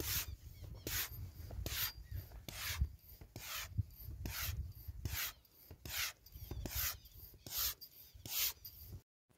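High-pressure hand pump filling a PCP air rifle: steady up-and-down strokes, each one a hiss of air, a little more than one stroke a second.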